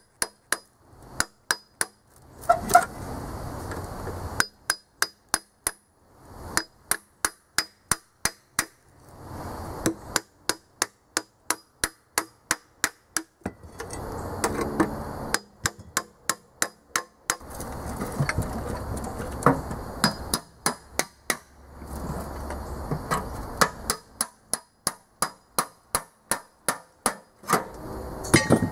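Hammer beating on a long steel bar held against a rusted small-block Chevy 305 engine block, in runs of sharp, ringing metal-on-metal blows about two and a half a second with short pauses between runs, to break loose rust-seized parts.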